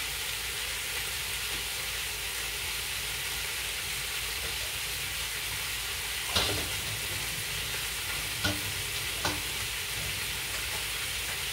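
Food sizzling steadily in a frying pan, with three short sharp clicks about six, eight and a half and nine seconds in.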